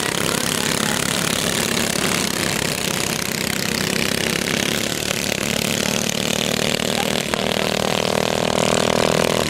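Small go-kart engines running as karts lap a dirt track, a steady engine drone. About seven seconds in, one engine becomes louder and clearer, as a kart comes nearer.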